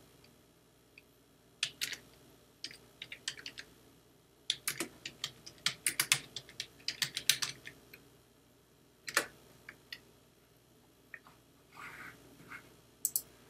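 Typing on a computer keyboard: quick runs of key clicks in two spurts, then a single sharper keystroke about nine seconds in and a few scattered clicks near the end.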